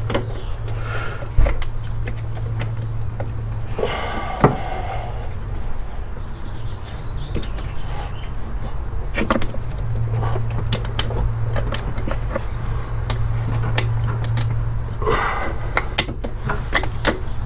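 Scattered light clicks and knocks of hands handling a serpentine belt and tensioner pulley on a VW VR6 engine, over a steady low hum.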